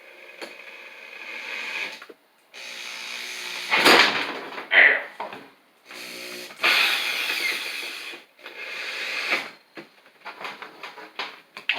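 Hand and tool work on a bench vise being reassembled: several runs of a pitched, grinding sound lasting a second or more each, then a quick string of light metal clicks and knocks near the end.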